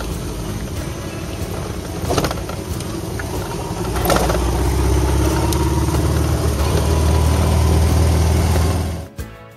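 Motorcycle engine running steadily under way, with wind and road rush over the microphone and a couple of knocks; it grows louder about four seconds in. Near the end it gives way abruptly to music.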